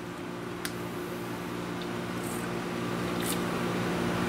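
Steady low machine hum with several pitched tones, with a couple of faint clicks about half a second in and about three seconds in.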